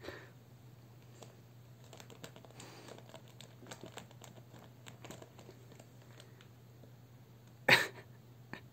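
Plastic chips bag crinkling and rustling in many short crackles as a long-haired pet rummages with its head inside it. One much louder sharp sound comes near the end.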